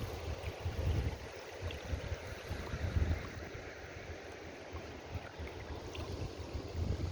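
Wind buffeting the microphone in irregular gusts, a rumbling low noise over a steady hiss.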